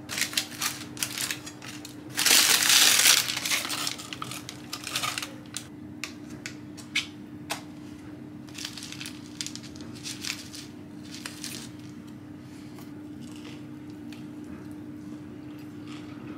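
Baking paper crinkling around a crusty homemade rosemary and sea salt loaf, then the loudest part, a few seconds in: a bread knife crunching through the hard crust. After that come lighter knife clicks and scrapes as butter is spread, over a steady low hum.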